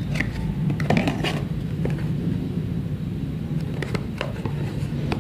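Cardboard box and packaging being handled: scattered light clicks and rustles, a cluster of them about a second in, over a steady low hum.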